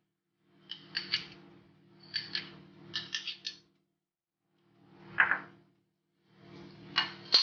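Kitchen utensils clicking and scraping against a plate in four short bursts.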